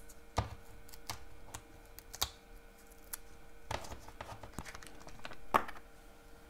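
Light clicks, taps and paper rustle from paper craft pieces being handled while foam adhesive dots are peeled from their backing sheet and pressed on. Several sharper taps stand out, the loudest about five and a half seconds in.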